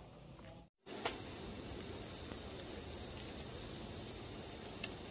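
An insect trilling in one steady, unbroken high-pitched note, starting abruptly about a second in after a brief silence.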